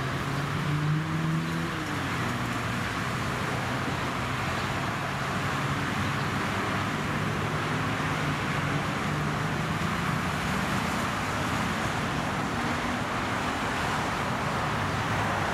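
GE ET44AC diesel-electric locomotive running as it approaches with a loaded coal train: a steady engine drone, slightly wavering in pitch, over a constant rumble and hiss from the train.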